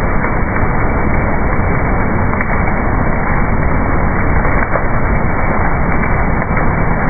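Crisp fried snack pieces pouring off a processing machine's discharge onto a stainless chute: a steady, dense crackling rattle of many small pieces tumbling, over a low machine rumble.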